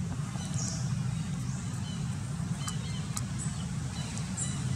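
A steady low rumble, with a few faint short high chirps and ticks over it.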